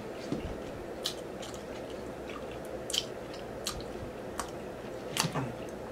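A man chewing a mouthful of spaghetti with meat sauce: scattered wet mouth clicks at irregular intervals, over the steady noise of a room fan.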